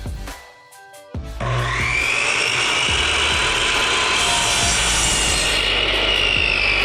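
Electric power saw cutting through fence wood: the blade's whine starts about a second in and then holds loud and steady, over background music with a beat.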